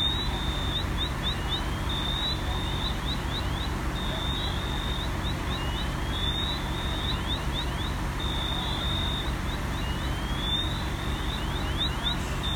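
Steady low rumble of fire-engine diesel engines running at the scene. Over it, a high alarm-like sound repeats every few seconds, cycling through a held tone, a run of quick chirps and a rising sweep.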